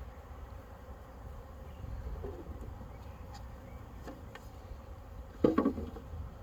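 Swarm of honey bees buzzing steadily as they move into a collecting box. A short, loud knock comes near the end.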